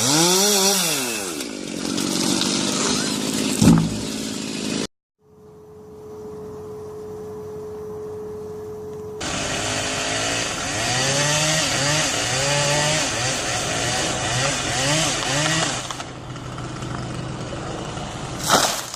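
Chainsaw engines revving up and down over several edited clips, with repeated rising-and-falling revs. The sound cuts out abruptly about five seconds in, and a steady single-pitched hum holds for about four seconds before the revving saw work resumes.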